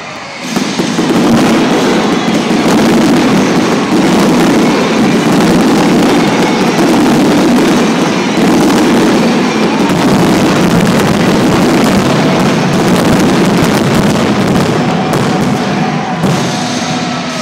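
Fireworks finale: a loud, dense, unbroken barrage of bursts and crackles that starts about half a second in and eases off near the end.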